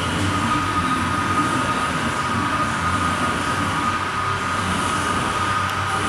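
Steady, loud machinery running noise with a constant high-pitched whine over a rough low rumble, unchanging throughout.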